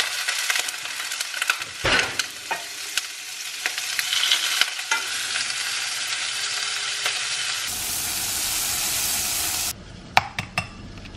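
Shrimp frying in hot oil in a skillet: a steady sizzle crackling with spatter pops. It cuts off suddenly near the end, and a few sharp taps follow.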